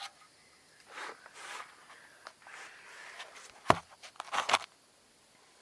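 Rustling and shuffling of someone handling things while working, with a single sharp click about two-thirds of the way in and a brief clatter of handling just after.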